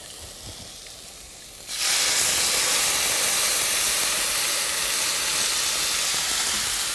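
Calf's liver sizzling quietly in a frying pan, then, a little under two seconds in, broth and molasses poured into the hot pan set off a sudden loud hiss of steam that carries on steadily.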